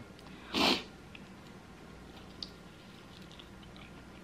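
One short, sharp sniff through the nose about half a second in, followed by faint, scattered mouth and chewing clicks as a chicken wing is eaten.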